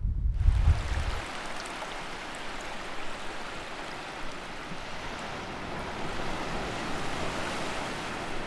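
Sea waves washing steadily, an even rush of surf noise. A low rumble, like wind on the microphone, dies away about a second in.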